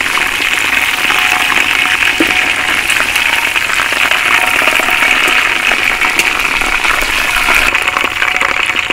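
Spiced chicken pieces deep-frying in hot oil in a wok: a loud, steady sizzle thick with fine crackling.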